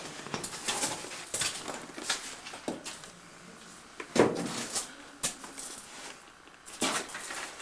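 Irregular scuffs, knocks and splashes of people moving over rock and through shallow cave-stream water, with a louder knock about four seconds in.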